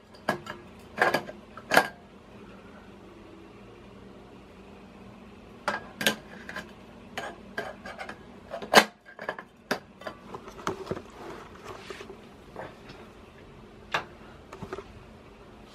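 Plastic diffuser covers of a fluorescent strip light clacking and knocking as they are handled against the fixture: an irregular string of sharp clicks, with the loudest knocks about six and nine seconds in and a flurry of smaller clicks around eleven seconds, over a faint steady hum.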